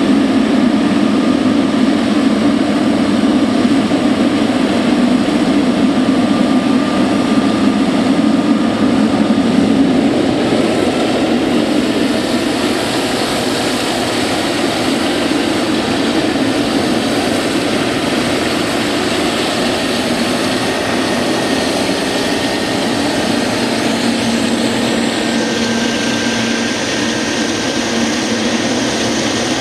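Jet airliner engines running, a loud steady rush of noise with faint high whines through it, easing slightly about a third of the way in.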